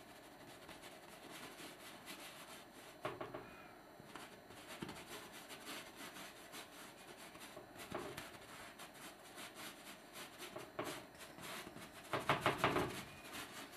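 Paintbrush strokes rubbing and scratching on canvas, scattered single strokes, then a quick run of strokes near the end that is the loudest.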